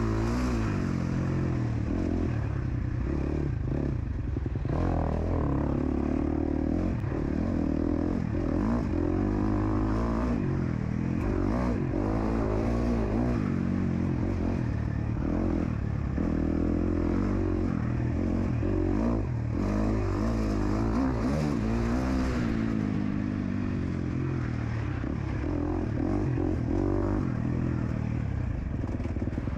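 KTM SX-F 250 four-stroke single-cylinder motocross engine revving up and down again and again as the rider accelerates, shifts and backs off, with knocks and rattles from the bike running over the rough dirt track.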